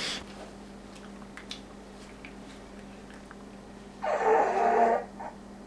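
A man lets out one long, low sound from the throat, about a second long, about four seconds in: the sign of an upset stomach after gulping eggnog.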